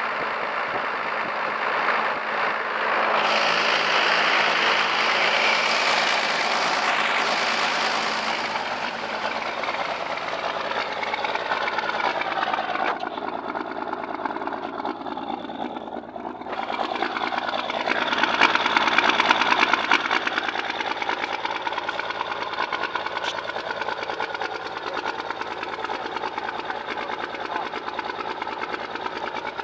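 1st-gen Cummins 5.9 12-valve diesel with a Bosch VE injection pump idling roughly and unevenly, its level swelling and sagging and surging about two thirds of the way through. The stuttering, barely-running idle began after the injection pump was resealed, and its cause is unknown to the owner.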